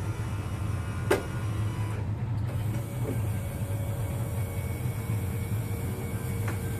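Steady low mechanical hum from the parked car, with a sharp click about a second in and a fainter one near the end.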